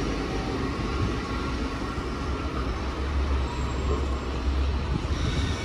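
Container freight train running away along the track after passing, a steady rumble of wheels on rail that dies down a little near the end.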